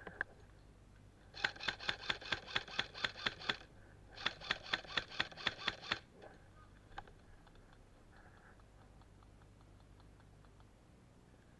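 Airsoft gun firing two strings of rapid shots, about six a second, each string lasting about two seconds with a short pause between them.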